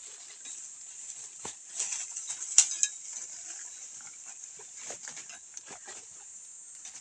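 Dry banana leaves and brush rustling and crackling as a long bamboo harvesting pole is pushed up into a banana plant, with a few sharper snaps, the loudest about two and a half seconds in. A steady high-pitched hiss runs underneath.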